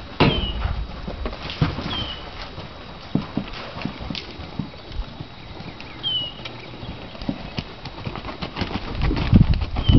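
Hoofbeats of a ridden horse on soft arena footing: irregular dull thuds, loudest near the end as the horse passes close.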